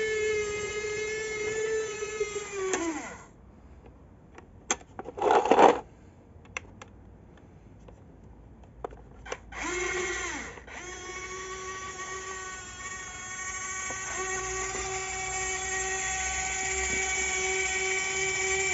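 Electric drive motor and gearbox of a tracked RC model GAZ-66 truck whining as it runs. The whine drops in pitch and stops about three seconds in. A few clicks and a short loud clatter follow. The whine starts again briefly near ten seconds and runs steadily from about eleven seconds on.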